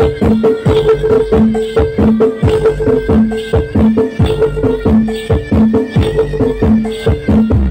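Traditional Javanese percussion music accompanying a Bantengan bull-mask dance. Drum strokes keep a steady, quick beat under repeating pitched gong-like notes.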